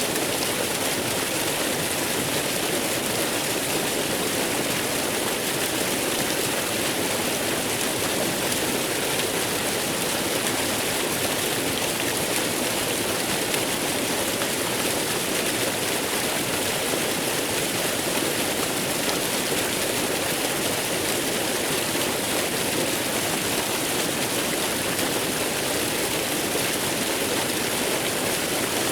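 Waterfall: falling water rushing steadily, an even, unbroken hiss.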